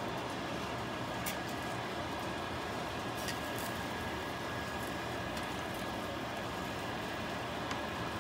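Steady mechanical hum with a thin high whine running through it, and a couple of faint light clicks, about a second in and about three seconds in.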